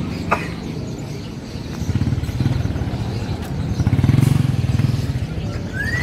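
Small motorcycle engines running, swelling louder about two seconds in and again around four seconds.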